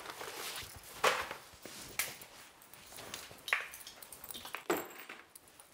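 Light footsteps and handling of a school backpack as it is taken off and dropped onto a sofa: a few separate short swishes and knocks, roughly a second apart.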